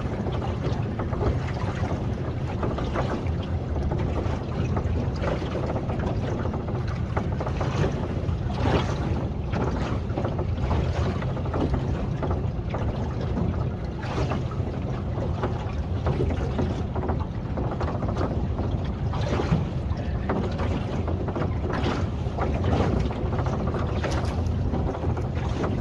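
Small boat's outboard motor running steadily, with wind buffeting the microphone.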